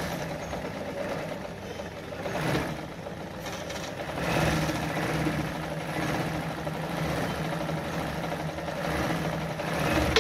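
Brother Pacesetter sewing machine's electric motor running under the foot pedal to wind thread onto the bobbin, a steady mechanical whir that gets louder about four seconds in.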